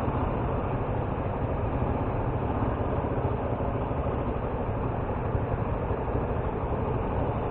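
Motorcycle running steadily on the road, engine and wind noise mixed into an even rumble.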